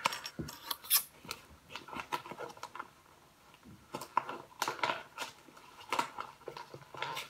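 Packaging being handled by hand: scattered rustles and light clicks, several close together about a second in and again after four seconds.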